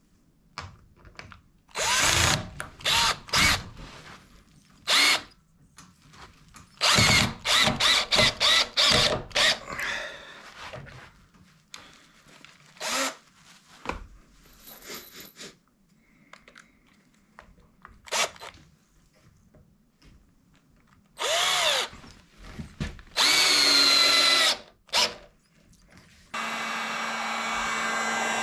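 Cordless drill driving screws through a white plastic strip into a wooden runner, in a series of short bursts, some with a rising whine as the motor spins up. About 26 seconds in, a heat gun switches on and runs with a steady blowing noise and a low hum.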